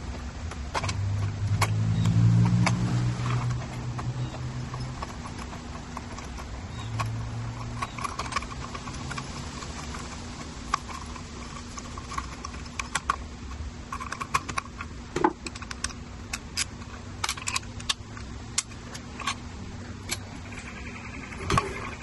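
Hand screwdriver backing small screws out of an e-bike battery's plastic lock housing: scattered small metallic clicks and ticks of the tool and screws, coming thick and fast in the second half. A low hum swells and fades in the first few seconds.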